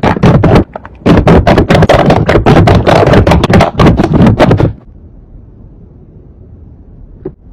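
Slime being squeezed and kneaded by hand, giving loud, rapid popping and crackling with a short break just under a second in. The popping stops a little past halfway, leaving a faint low hum and one click near the end.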